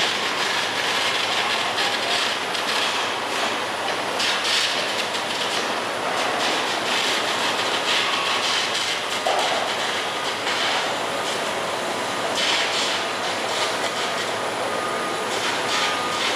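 Construction-site din: a steady mechanical rush with irregular metallic clanking and rattling.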